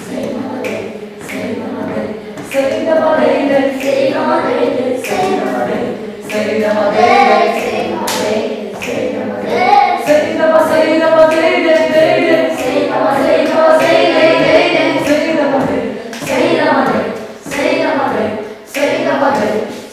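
A group of voices singing together unaccompanied, with a steady beat of sharp percussive hits about twice a second; the singing grows louder about two and a half seconds in.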